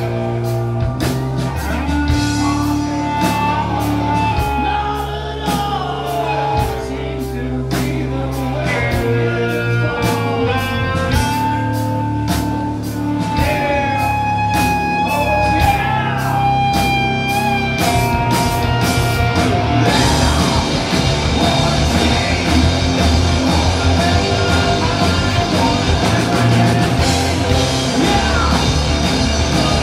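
Live rock band playing electric guitars, bass and drum kit: melodic guitar lines with sliding, bent notes over steady drum strokes. About two-thirds of the way in, the band turns denser and slightly louder, with cymbals washing over everything.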